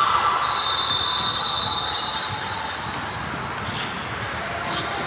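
Basketball game sounds in a gym: a ball bouncing on the court and a background hubbub. A steady high-pitched tone sounds from about half a second in and lasts about two seconds.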